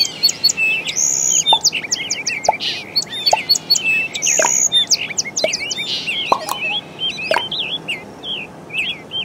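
Songbirds chirping and singing in a busy chorus: many short, quick rising and falling calls overlapping one another, over a steady faint hiss.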